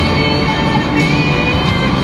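Music plays at a steady, loud level, with a crowd-like din mixed in.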